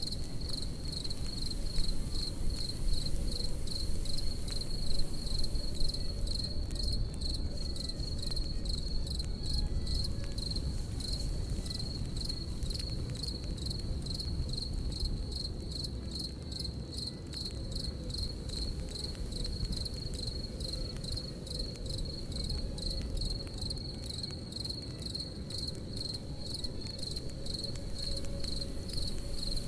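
Crickets chirping in a steady, evenly pulsed high trill over the low rush and scattered pops of a crackling campfire.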